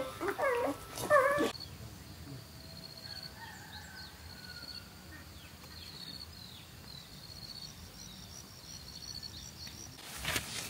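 Newborn puppies whimpering and crying for about a second and a half. Then a quiet outdoor ambience with birds chirping in short repeated trills, and a few sharp knocks near the end.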